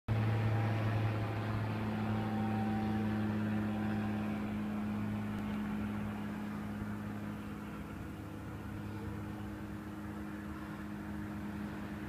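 Steady low mechanical hum, a motor or engine running, with a few held tones over a noisy background. It eases off somewhat about halfway through.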